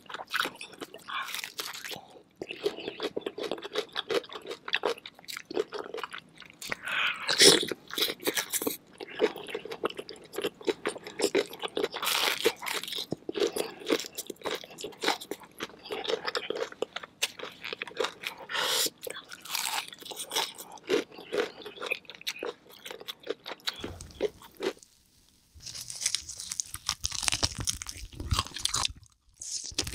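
Close-miked eating of spicy chicken: repeated crunchy bites and wet chewing. Near the end there is a short lull, then brighter, crisper crunching.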